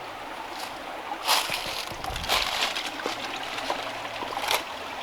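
Steady rush of a mountain stream's flowing water, with three louder brief noises, about a second, two seconds and four and a half seconds in.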